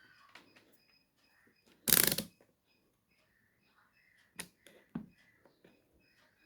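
Handling noises while working on an opened TV set: a short loud scrape or rustle about two seconds in, two sharp clicks later, and faint small clicks and taps between them.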